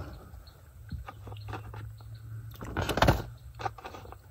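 Paper takeout bag rustling and small handling clicks as food is taken from it, with a louder rustle about three seconds in, over a steady low hum.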